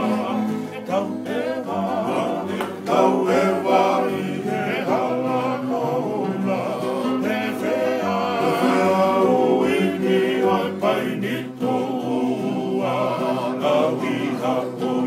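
Tongan men singing together in group harmony to strummed acoustic guitars, a kava-club style song.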